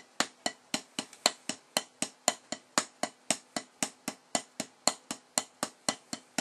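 Wooden drumsticks striking a practice pad in an even run of sharp taps, about four a second. The taps are single, double and triple paradiddles played slowly back to back.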